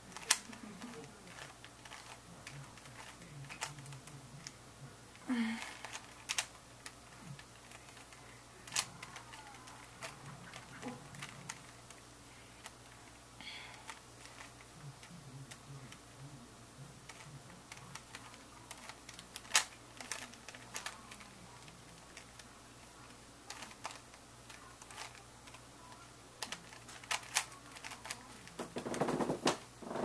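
Plastic Rubik's Cube being twisted by hand: irregular clicking of the layers turning, with now and then a sharper snap.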